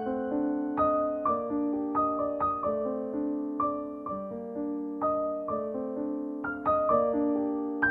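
Background piano music: a gentle melody of single notes and chords, struck every half second or so and left to ring and fade.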